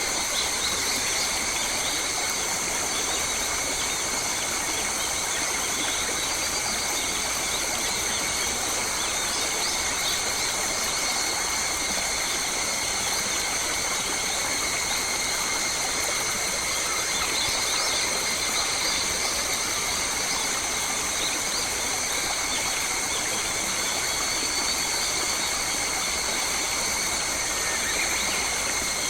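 Forest ambience: a steady, high-pitched insect drone made of several constant tones, over an even hiss, with a few faint bird chirps.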